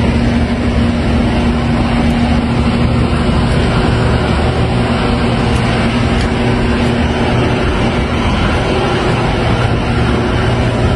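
A vehicle engine running steadily, a loud, even low hum with a steady drone over it.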